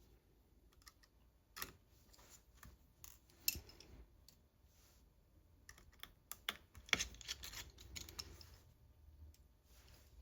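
Faint, scattered light clicks and taps of a small screwdriver and metal screws going into a tablet's frame, with a denser run of clicks about seven seconds in.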